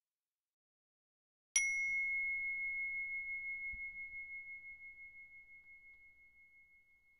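A meditation bell struck once, about a second and a half in, ringing a single clear high tone that fades slowly over several seconds with a slight pulse in its ring.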